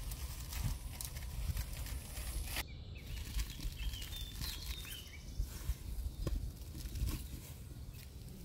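Outdoor ambience with a low steady rumble, a few bird chirps about four seconds in, and the light rustle of thin flatbread sheets being folded and handled.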